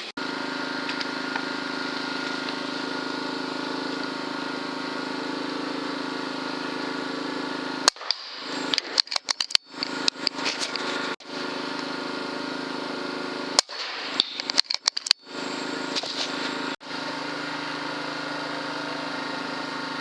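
A steady hum with several pitched tones holds throughout. It is broken by two clusters of sharp cracks and clicks, one about eight seconds in and one a little past halfway: pre-charged air rifle shots and the clicking of the rifle's action.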